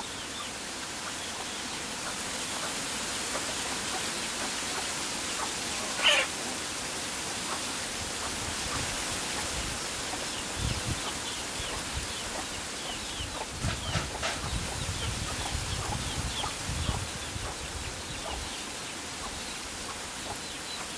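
Steady outdoor hiss, with a chicken giving one short call about six seconds in and faint chirps from small birds. A few low bumps sound in the middle.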